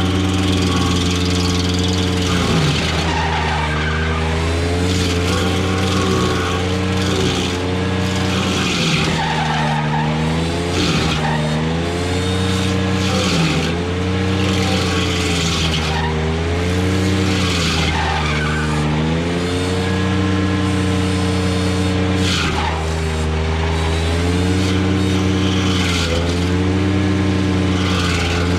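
Ventrac compact tractor running hard, driving the KC220 stump grinder's cutter wheel into a stump. A whine sags and recovers about every two seconds as the wheel sweeps across the wood, over a steady engine note and the hiss of chips being cut and thrown.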